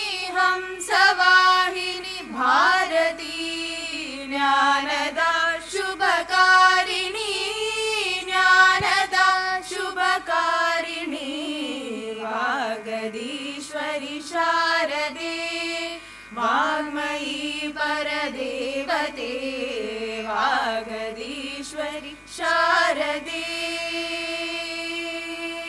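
Several young women singing a devotional invocation to the goddess Saraswati together, a slow melody in short phrases with brief breaths between; near the end they hold one long note.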